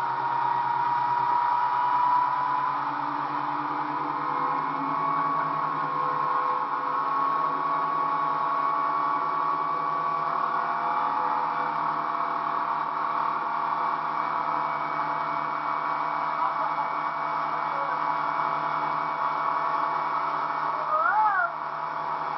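Motorboat engine running steadily at towing speed, its note creeping slightly higher over the first half, over a steady rush of water and wind. Near the end a brief, louder rising-and-falling tone cuts in.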